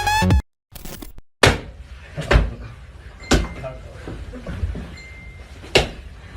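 Electronic dance music cuts off about half a second in. After a moment of silence come four sharp knocks or bangs, spaced irregularly, over faint room noise.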